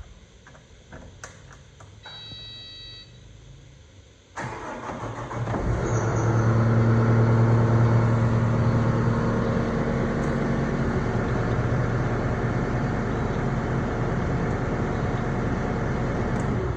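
Kubota SVL97-2 skid steer's diesel engine starts about four seconds in and settles into a steady run, getting louder a second or so later. It is being run after a fresh oil change to bring up oil pressure.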